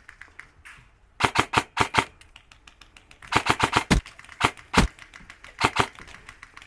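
Airsoft electric rifle firing in short strings of rapid snapping shots, four strings in all, with two heavier knocks around the middle.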